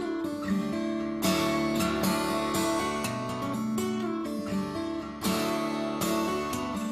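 Music: an acoustic guitar strumming chords, with heavier strums about a second in and again near the end.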